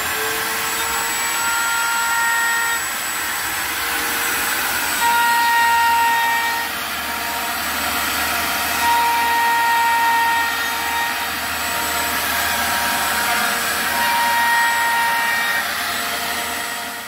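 Benchtop router table's router running at full speed with a 3/16-inch corner-round bit, rounding over the edges of a small MDF block. A higher whine comes and goes in stretches of a second or two as the bit cuts into the wood, and the sound cuts off suddenly at the end.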